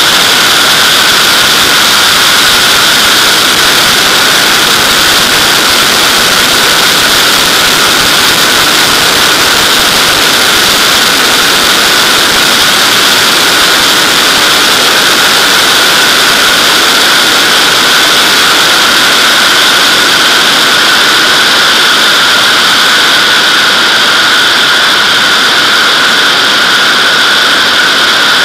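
Loud, steady rush of airflow over a camera mounted on the fuselage of a Nimbus-2 sailplane in gliding flight, with steady whistling tones in the rush.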